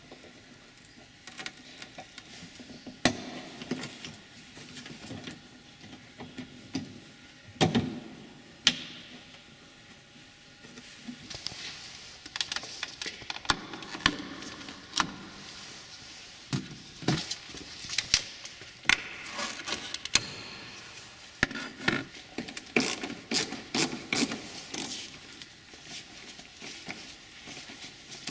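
Plastic trim clips and cover plates being pried and unclipped by hand from a Toyota RAV4's rear body: scattered clicks, snaps and knocks of plastic, coming thickest through the second half.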